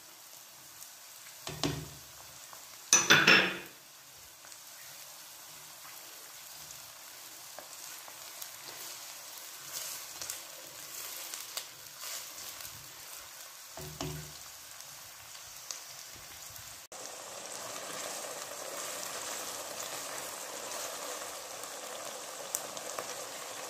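Chopped onions and ginger-garlic paste sizzling and frying in hot oil in a non-stick kadai. A spatula clatters against the pan twice in the first few seconds and once more midway as it stirs. The sizzle grows louder about two-thirds of the way through as the onions bubble in the oil.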